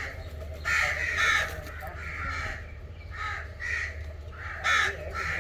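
Crows cawing repeatedly: about six or seven short, harsh caws spaced roughly half a second to a second apart, with the loudest about one second in and near the end.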